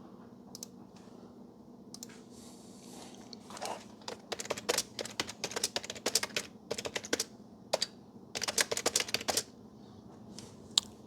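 Runs of quick, sharp clicks in three clusters over about six seconds, over a faint steady hum.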